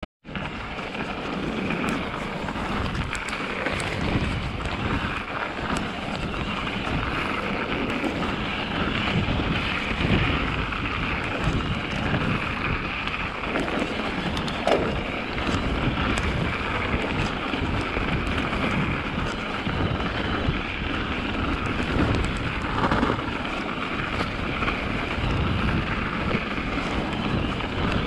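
A mountain bike being ridden over a snowy forest trail: tyres hissing and crunching on the packed snow, wind buffeting the camera microphone, and scattered small clicks and rattles from the bike.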